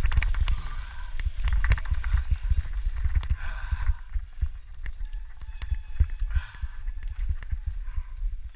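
Mountain bike running fast down a bumpy dirt trail: a constant low wind rumble on the microphone, with rapid rattling clicks and knocks as the bike and tyres hit roots and bumps.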